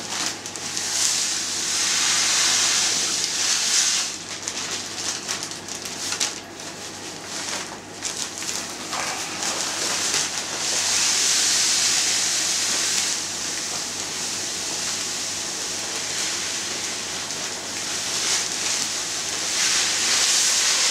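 Dry cereal grits poured from a plastic bag into a bucket of water, a hissing, rain-like patter that swells in three long pours, the last near the end.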